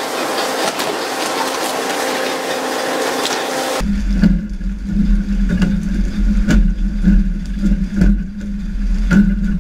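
Fishing boat at sea. For about four seconds there is a steady rushing hiss of water with a faint engine hum. Then it changes abruptly to the boat's engine droning low and steady, with scattered sharp knocks.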